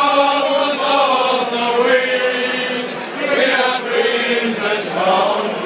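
A large group of British and Irish Lions rugby fans singing a chant together, holding long notes in unison.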